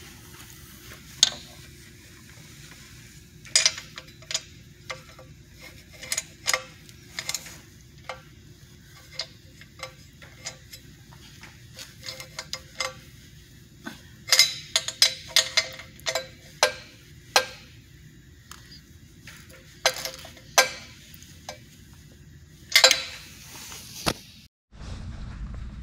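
Socket wrench clicking and clinking on the exhaust manifold-to-downpipe flange nuts as they are tightened: irregular sharp metallic clicks, some ringing briefly, in scattered clusters.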